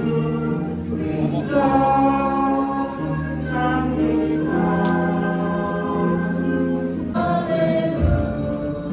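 Background music: a choir singing long held chords that change every second or two.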